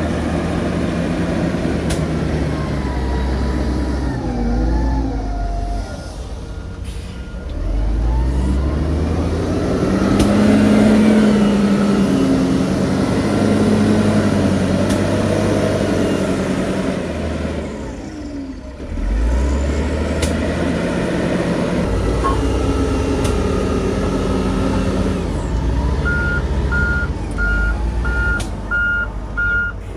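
Diesel engines of heavy earthmoving machinery (bulldozer and dump truck) working, rising and falling in speed and load, with a brief lull a little past the middle. Near the end a reversing alarm starts beeping steadily, a bit more than once a second.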